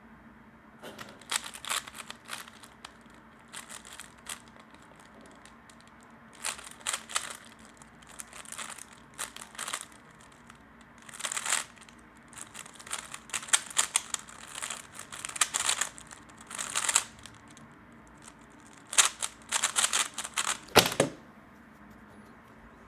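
A 3x3 Rubik's cube being turned fast: bursts of rapid plastic clicking and rattling from quick turns, broken by short pauses, and a louder knock near the end.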